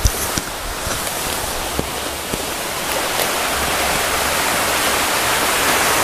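Small waterfall splashing down over rocks: a steady rush of falling water that grows a little louder in the second half.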